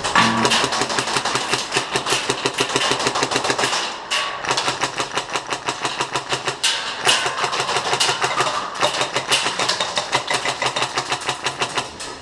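Polarstar HPA-powered airsoft RPK firing long full-auto bursts: a rapid, even clatter of shots, broken off briefly about four seconds in and again near seven seconds.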